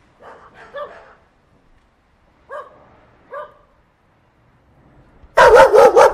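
Small dog barking at a snake: a few short, spaced yaps, then a loud, fast run of barking near the end.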